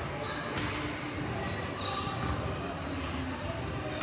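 Indoor basketball game: a ball bouncing on the court under a steady murmur of voices, with two short high squeaks about a second and a half apart.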